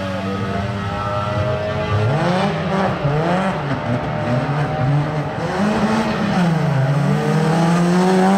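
Citroën C2 rally car engine running hard through a bend, its revs dropping and climbing again several times and rising steadily near the end as it pulls away.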